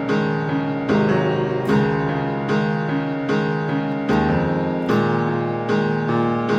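Background music: a piano playing chords, a new chord struck about every eight-tenths of a second in a steady pulse.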